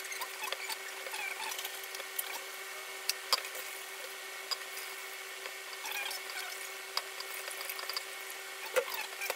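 Wet grated coconut being squeezed and kneaded by gloved hands in water in a steel bowl, with soft squelching, sloshing and small clicks, as the second coconut milk is pressed out. A steady hum runs underneath.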